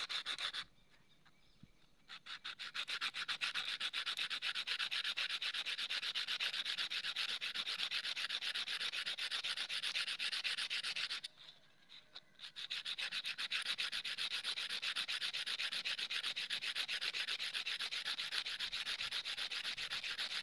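Edge of a small glass disc rubbed rapidly back and forth on coarse cloth-backed sandpaper: a fast, even rasping of strokes, grinding a bevel onto the rim. The rasping stops for about a second just past the middle, then resumes.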